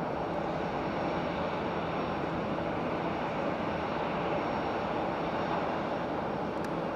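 Jet aircraft engines running with a steady rushing noise and a faint high whine.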